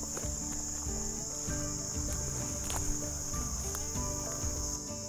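Late-summer insect chorus: a steady, unbroken high-pitched trill from crickets or katydids in the field edges. Soft background music plays underneath.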